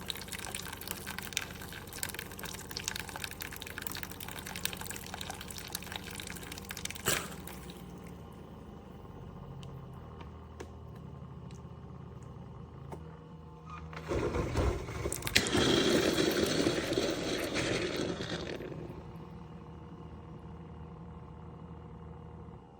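Hamilton Beach FlexBrew Trio coffee maker brewing, with hot water pouring and gurgling over a low hum. About halfway through comes a louder burst of hissing and sputtering lasting some five seconds. The hum stops near the end.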